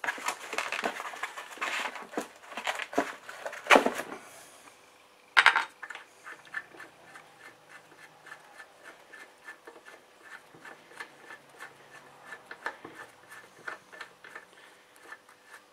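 Metal transfer-case parts clattering and knocking as the two aluminium case halves are handled and fitted together, with a loud sharp knock about five seconds in. After it comes a run of light, even ticks, about three a second.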